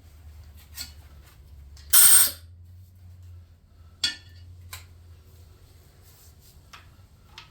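Tools and parts being handled on a workbench: a few light metal clicks and knocks, with one brief, loud, rushing burst about two seconds in and a sharp metallic click a couple of seconds later, over a low steady hum.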